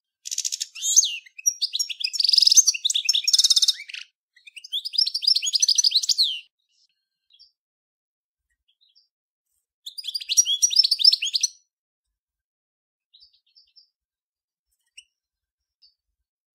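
European goldfinch of the Major race singing: fast, high twittering phrases in three bursts, the first two back to back and the third about ten seconds in. After that it falls quiet apart from a few faint single chirps.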